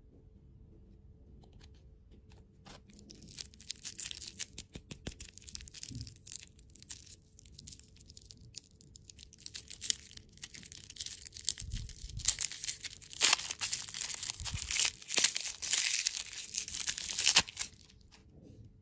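Plastic lollipop wrapper crinkling and tearing as it is pulled open by hand: it starts a few seconds in, grows louder and busier in the second half, and stops shortly before the end.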